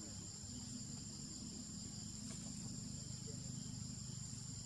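Steady high-pitched insect chorus of forest crickets or cicadas, holding one shrill tone without a break, over a low steady hum.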